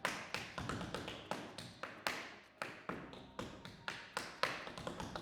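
Tap shoes striking a hard floor: a quick, uneven rhythm of sharp taps, several a second.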